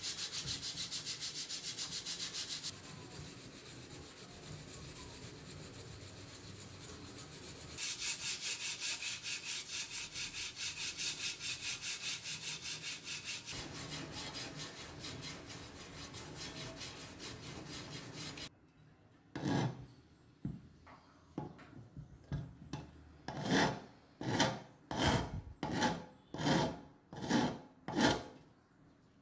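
Hand sanding with sandpaper on the rusty metal frame of an old clock: quick back-and-forth scraping strokes, several a second, broken by abrupt cuts. In the last third the strokes become slower and separate, about one and a half a second, each one louder.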